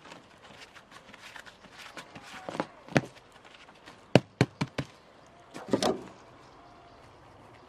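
Pincers clicking and scraping on a steel wire tie as it is twisted tight through chicken-wire mesh over reed board. There is a sharp click about three seconds in, a quick run of four sharp clicks a second later, and a short rustling scrape near six seconds.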